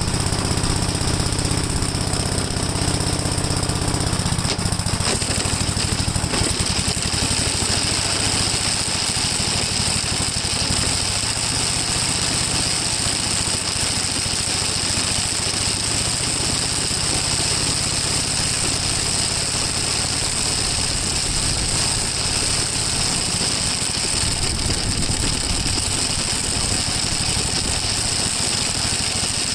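Gravely walk-behind tractor running with its sickle bar mower attachment, the cutter bar chattering with a fast, steady, jackhammer-like rattle over the engine. The engine's note shifts about four seconds in.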